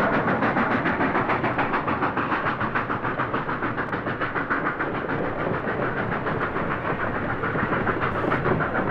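Nickel Plate 759, a Lima 2-8-4 Berkshire steam locomotive, running at speed past the listener with rapid, even exhaust beats, about five or six a second.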